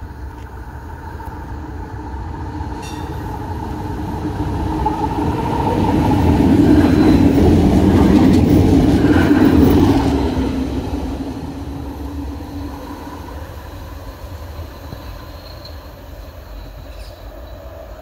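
A London Tramlink tram passes at close range. The sound of its running gear on the rails builds as it approaches, is loudest as it goes by about six to ten seconds in with a steady hum through the noise, then fades as it moves away.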